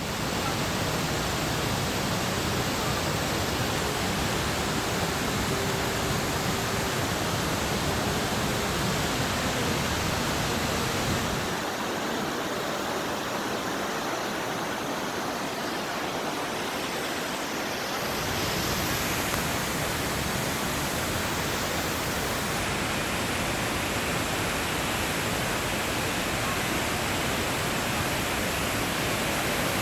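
The Great Falls of the Passaic River: a steady, even rush of falling water. The deep rumble under it drops away for several seconds just before the middle, then comes back.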